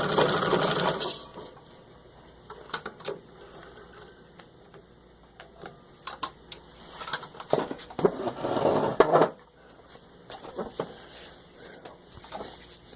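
Singer 66 treadle sewing machine running a full-speed stitch test through six layers of denim, stopping about a second in. After that come scattered light clicks and a louder rustling, scraping stretch a little past the middle.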